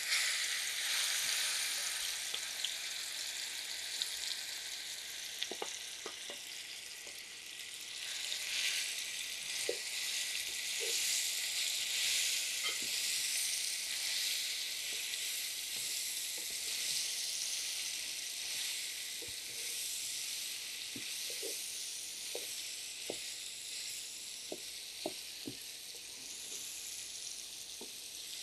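Boiled, crushed green jolpai (Indian olives) sizzling steadily in hot mustard oil in a wok as they are tipped in and stirred with a wooden spatula, with scattered light taps and scrapes of the spatula on the pan.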